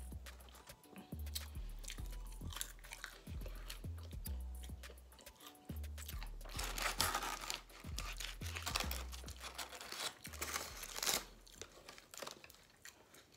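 Close-miked chewing and crunching of Wingstop fried food, with rustling of the paper tray liners as the food is picked through, over background music with a stepped bass line.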